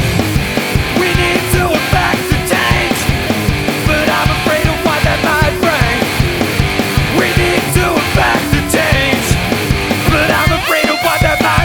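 Loud rock music with a steady drum beat, an instrumental stretch with no singing.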